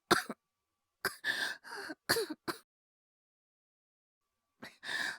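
A voice actor's acted boy's cough, as of a child with a cold: about four short coughs in quick succession, then a pause and a breath near the end.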